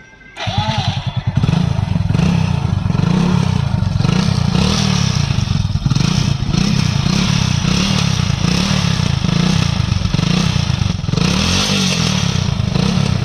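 Hero Splendor single-cylinder four-stroke motorcycle engine starting about half a second in, then running through its exhaust with the pitch rising and falling over and over as the throttle is worked.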